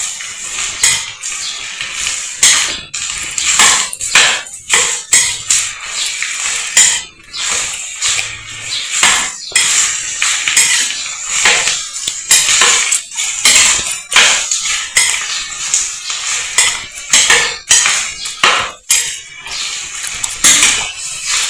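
A metal spoon scraping and stirring chopped nopales and onion frying in oil in a pot, with repeated irregular scrapes and knocks over a steady hissing sizzle.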